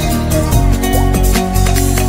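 Background pop music with a steady beat and heavy bass.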